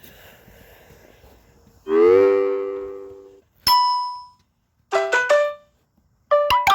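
Samsung Galaxy A50 stock notification sounds played one after another with short gaps between them. First comes a low tone that bends up and then fades over about a second and a half, then a single bell-like ding, then a quick run of three short notes, and near the end another quick cluster of notes begins.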